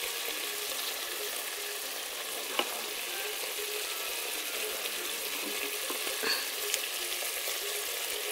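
Liver pieces sizzling steadily in a metal pot as their cooking liquid boils down to almost nothing, with a couple of faint clicks.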